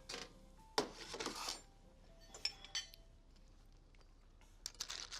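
Cooked clam shells clattering and clinking against cookware: a sharp knock about a second in, then scattered clinks with a brief ringing around the middle and again near the end.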